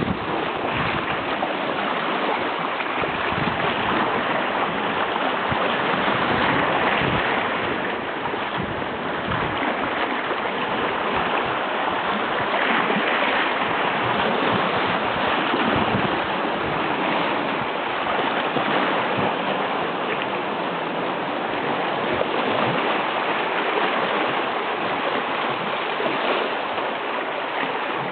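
Baltic Sea surf washing in: a steady rush of waves that swells and eases slowly.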